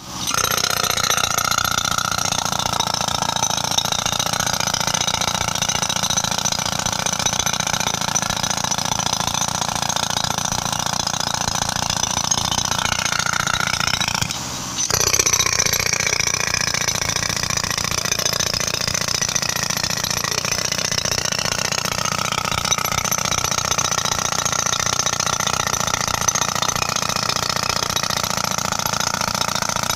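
Pneumatic jackhammer hammering steadily into an asphalt road surface, driven by an air hose from a compressor. It breaks off briefly about halfway, then carries on.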